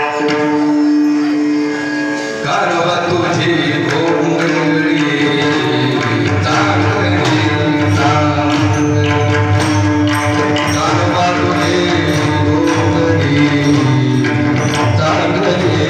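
Indian devotional music: one long held note with rich overtones, then from about two and a half seconds in a fuller ensemble with steady drum strokes.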